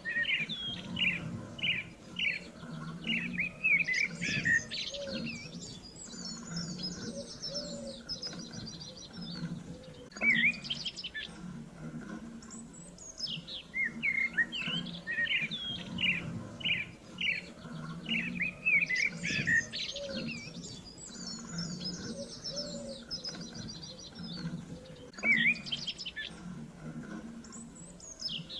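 Songbirds chirping and trilling in a busy chorus of short calls and rapid high trills. The same passage repeats about halfway through, as in a looped recording.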